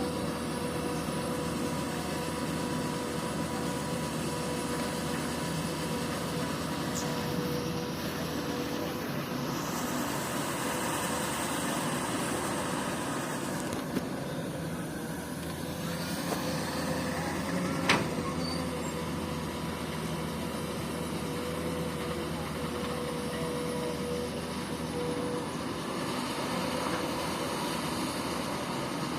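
Komatsu PC200 excavator's diesel engine running steadily, with a sharp clank about two-thirds of the way through.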